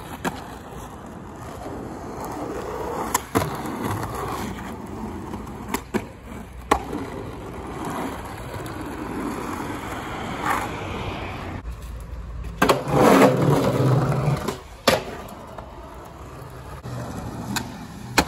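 Skateboard wheels rolling over asphalt and concrete, broken several times by sharp clacks of the board popping and landing, with a louder burst of noise about two-thirds of the way in.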